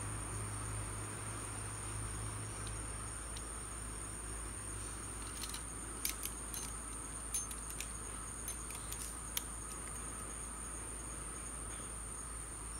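Insects shrilling as a steady high-pitched drone, with a few sharp clicks in the middle as a fish lip grip and hanging scale are handled.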